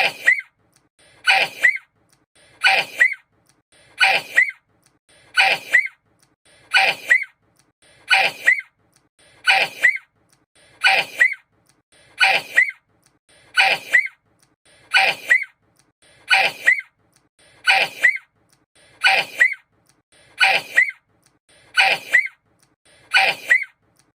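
A sneeze repeated over and over as an identical loop, about once every one and a half seconds, each ending in a short rising squeak.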